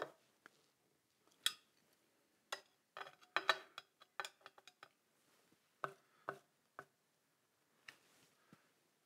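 Metal chassis parts being handled: brackets, screws and a screwdriver clinking and tapping against the heat sink panels in irregular sharp clicks, with a quick cluster of clinks in the middle that ring briefly.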